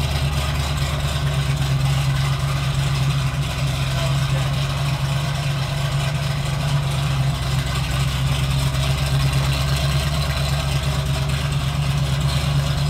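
1977 Chevrolet C10's small-block 350 V8 idling steadily and loud through Black Widow Neighbor Hater mufflers, one on each bank.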